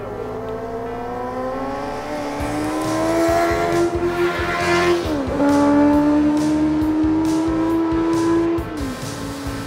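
Racing sidecar outfit's motorcycle engine at high revs on the track, its note climbing and then dropping sharply at an upshift about five seconds in and again near the end. It is loudest between the two shifts.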